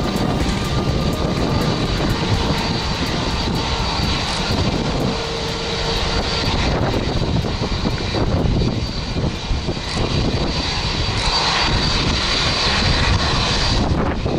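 Jet airliner engines running, a steady broad rumble with a thin high whine over it that grows stronger near the end.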